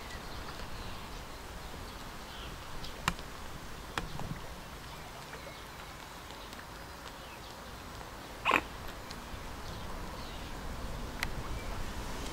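Mute swans calling over a steady hiss: a few faint, short high calls and one short, louder call about eight and a half seconds in, with a few sharp clicks.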